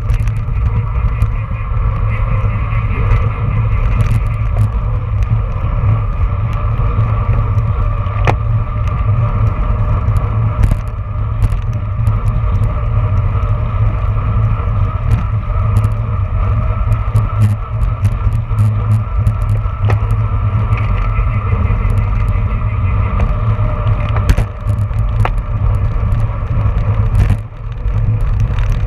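Wind rushing over the microphone of a handlebar-mounted camera on a road bike at racing speed, a loud steady low rumble with tyre and road hum and scattered sharp clicks.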